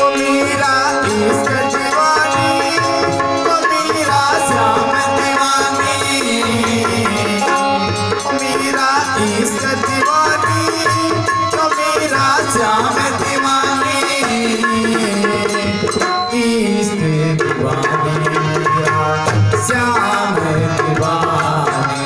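Indian devotional folk music, with no singing: a harmonium-led melody over a steady hand-drum rhythm.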